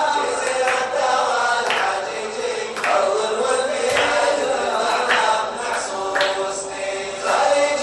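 Group song: several voices chanting together over a drum struck about once a second, the beat of a Gulf-style dance song.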